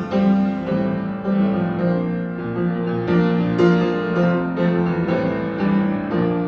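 Piano accompaniment playing sustained chords over a steady low note, the chords changing about every half second.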